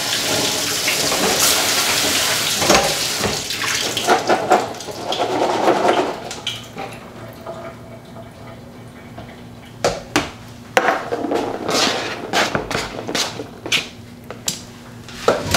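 Kitchen tap running as canned black beans are rinsed in a collapsible colander; the water stops about four seconds in. Then come scattered light clicks and knocks as the colander is shaken and the beans are tipped into a glass dish.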